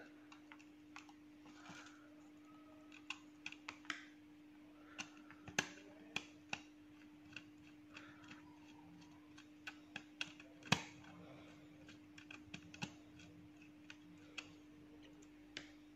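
Small screwdriver working the screw terminals of a Carel IR33 controller's plastic terminal block as sensor wires are fitted and tightened: faint, irregular clicks and ticks, the loudest about eleven seconds in, over a faint steady hum.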